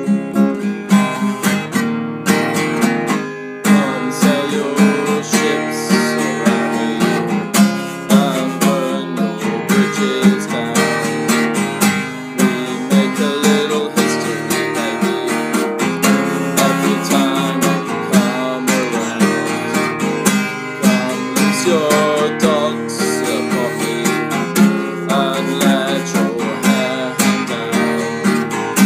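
Steel-string acoustic guitar strummed in a steady rhythm, with a man singing along from a few seconds in.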